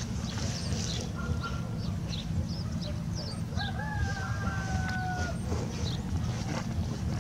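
A rooster crowing once about midway, one long call that falls slightly in pitch, over scattered high chirps of small birds and a steady low rumble.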